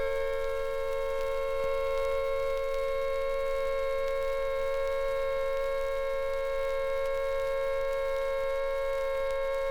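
British air raid siren holding a steady pitch, two close notes sounding together with many overtones, over a faint low hum from an old 78 rpm record.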